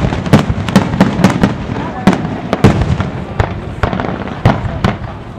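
Fireworks display: a dozen or so sharp bangs from shells bursting overhead, going off at uneven intervals.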